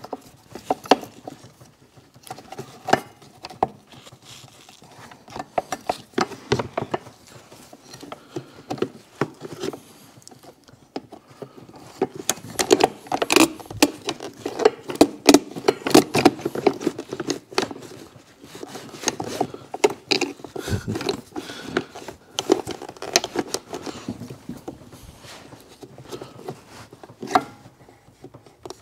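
Irregular clicks, knocks and rattles of hand tools and metal and rubber engine parts being handled while coolant hoses are taken off an engine. They are busiest and loudest in the middle.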